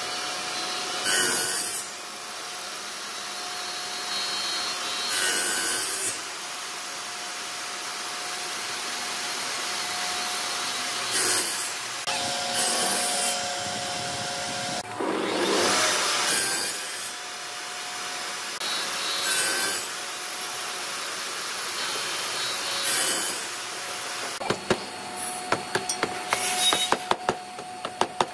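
Table saw running with its blade tilted, cutting V-notches into old railway-sleeper timber in several separate passes, each pass a louder stretch of sawing over the steady motor noise. Near the end, a quick run of sharp knocks as the triangular waste pieces are knocked loose.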